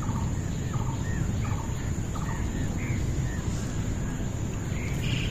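A series of short animal calls, about a dozen quick chirps and clucks, some rattly and some rising then falling in pitch, over a steady low rumble.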